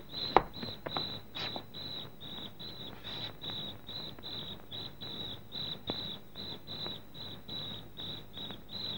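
Cricket chirping steadily, a regular pulse of short high chirps at one pitch, about three a second. A sharp click about half a second in.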